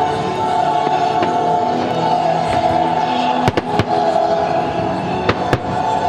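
Fireworks shells bursting with sharp bangs, three in quick succession about three and a half seconds in and two more a couple of seconds later, over steady music.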